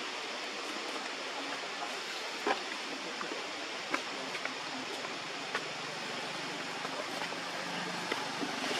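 Steady, even outdoor hiss with a few short, sharp clicks scattered through it.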